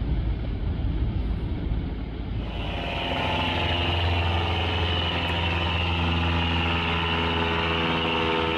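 A low rumble, then about two and a half seconds in, a cut to jet aircraft engines running with a steady whine.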